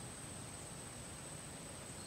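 Steady background hiss with a thin, constant high-pitched whine, and no distinct sounds of eating or movement.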